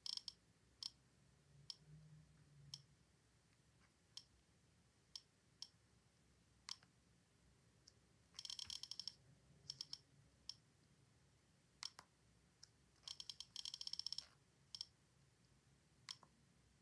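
Apple iPod 5th-generation click wheel clicking as it is scrolled through menus: single faint ticks every second or so, with two quick runs of rapid clicks, about eight seconds in and again about thirteen seconds in.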